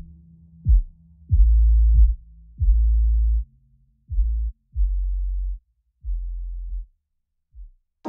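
Music: a run of deep electronic bass hits, each opening with a quick downward pitch drop and then held briefly. They come at uneven spacing and grow quieter and shorter toward the end.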